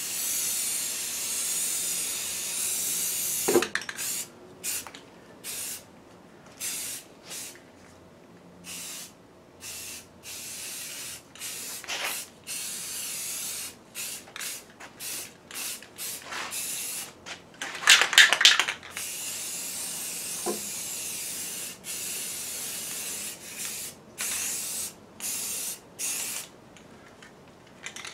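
Aerosol rattle can of spray primer hissing in many short bursts and a few longer passes, each cutting off sharply. About two-thirds of the way through there is a brief, louder rattle.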